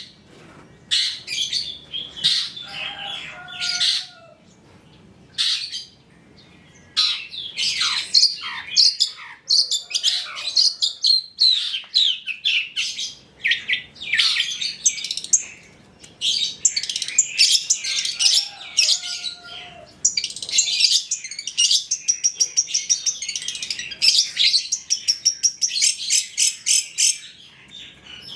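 Long-tailed shrike (cendet) singing a fast, varied chattering song of sharp high notes and trills, with a run of rapidly repeated notes near the end. It is a tutor recording of shrike song mixed with mimicked calls of other birds, used to prompt caged shrikes to sing.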